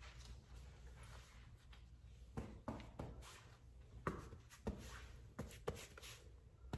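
Armored hoodie's fabric rustling and brushing as hands rub and pat the sleeves, a string of short, soft strokes that come more often after the first couple of seconds.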